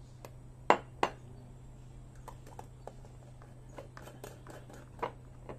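Metal spoon clinking against a glass jar while scooping out red fermented bean curd: two sharp clinks a little under a second in, then scattered light taps.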